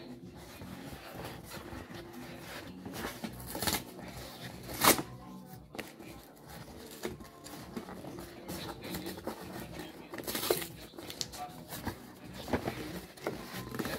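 A cardboard mailer box being handled and picked at: scattered scratches, taps and clicks as fingers work at a firmly stuck flap, with one sharp knock about five seconds in.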